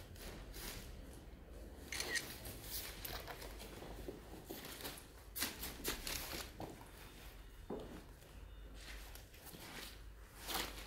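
Thin cherry wood veneer sheets rustling and crackling irregularly as they are handled, in scattered dry clicks over a low steady hum.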